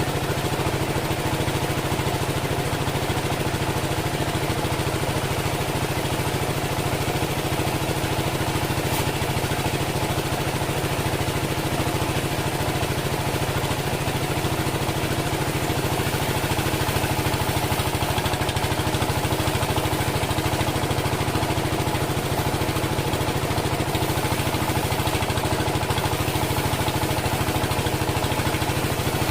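Engine of a homemade band sawmill running steadily at a constant speed.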